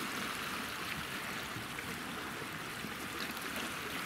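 Small sea waves washing and lapping among the rocks of a stony shoreline, a steady hiss of moving water.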